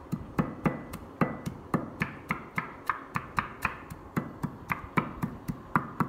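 Pestle pounding in a mortar, grinding coarse salt, chilies, Vietnamese coriander and lime leaves into a dipping-sauce paste: a steady run of sharp knocks, about four a second.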